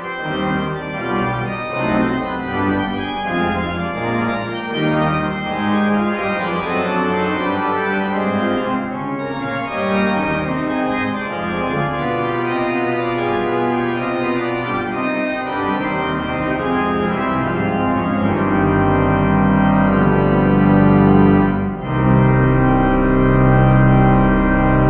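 Church pipe organ playing a piece of quick, many-noted lines. About three quarters of the way in it swells into louder held chords over a deep pedal bass, with a short break just before the loudest stretch.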